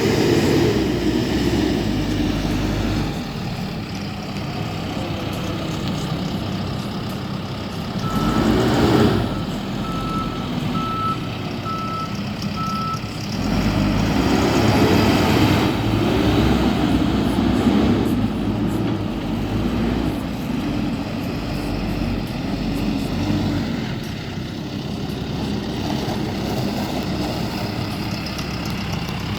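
John Deere 410L backhoe loader's diesel engine running and revving up and down several times as it works. A reverse alarm beeps steadily for about five seconds, starting about eight seconds in.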